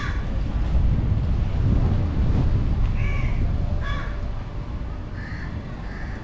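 Wind buffeting the microphone of a car-mounted GoPro, with the low rumble of the car rolling slowly along the road; the rumble eases off in the second half. A bird calls briefly a few times from about three seconds in.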